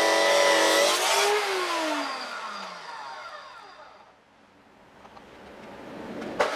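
Abrasive metal chop saw cutting mild steel, the motor running with a steady whine over the hiss of the disc in the metal. About a second in, the cut ends and the motor winds down, its pitch sliding steadily lower over a couple of seconds until it is nearly quiet. Near the end there is a sharp click, and the saw is running again.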